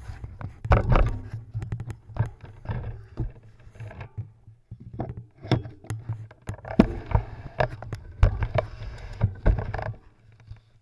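Irregular knocks and rattles over a low rumble: handling noise picked up by a handlebar-mounted action camera as the road bike is moved and turned on gravel.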